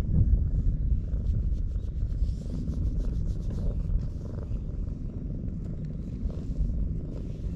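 Tortoiseshell cat purring steadily while its head is stroked.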